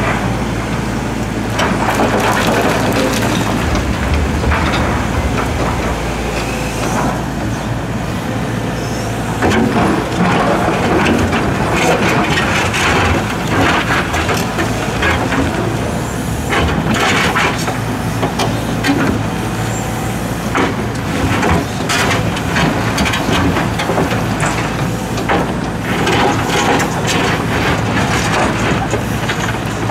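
Hitachi Zaxis 135US excavator's diesel engine running steadily under working load, while its steel bucket scrapes and clanks through blasted rock. Rocks knock and clatter again and again as they are dug and dumped.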